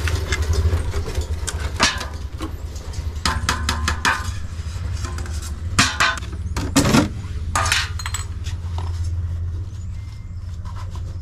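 A metal paint tin being opened and handled: its lid is levered off and set down, giving a series of metallic clicks, clinks and knocks, the loudest about six to seven seconds in, over a steady low rumble.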